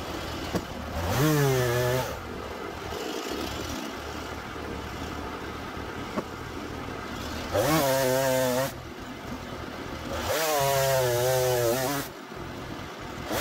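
Husqvarna two-stroke chainsaw idling, then revved to full throttle three times in short bursts, each rising in pitch, as it crosscuts Douglas fir slabs off the sawmill.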